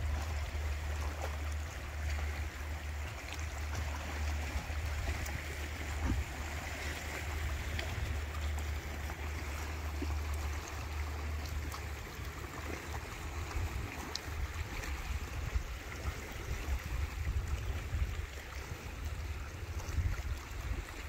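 Small waves washing and lapping against shoreline rocks, under a steady low rumble of wind on the microphone, with a few faint clicks.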